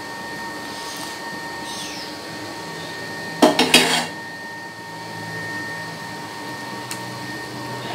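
Fried eggplant pieces tipped from a china plate into a stone mortar of sambal, with a short burst of clattering about three and a half seconds in as dishware knocks against the mortar. A steady hum runs underneath.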